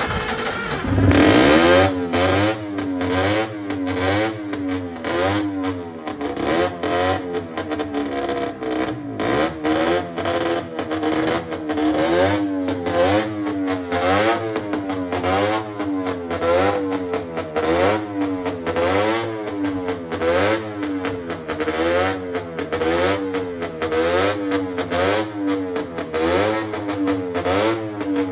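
Vintage racing motorcycle engine, just fired on a roller starter, catching about a second in and then revved up and down over and over, roughly once a second.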